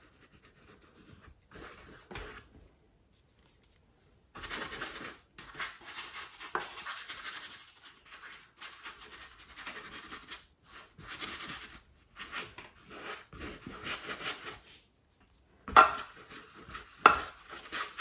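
Filbert paintbrush scrubbing acrylic paint onto a canvas: an irregular run of scratchy brush strokes, with two sharper knocks near the end.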